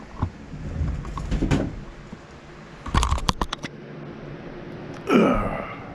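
Handling noises from working on a small wooden model: rustling and light knocks, with a quick run of sharp clicks about three seconds in. A short falling voice sound, like a grunt or hum, comes near the end.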